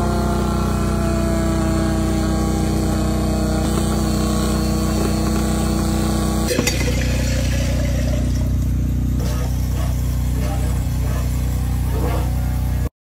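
Fuel transfer pump running steadily as fuel flows through the meter and out of the nozzle, a low motor hum with a whine that slowly rises in pitch over the first several seconds. A click about six and a half seconds in, then the hum runs on and cuts off suddenly just before the end.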